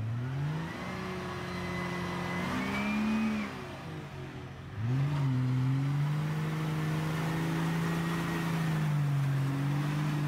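Toyota Land Cruiser engine revving hard under load as the truck pushes through deep mud on oversized mud tires. The revs build and hold, ease off about three and a half seconds in, then climb sharply again a second later and stay high, with mud and water spraying off the spinning tires.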